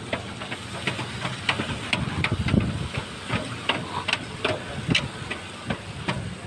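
Dredger machinery running with a steady low rumble, under irregular sharp metallic knocks and clanks about twice a second.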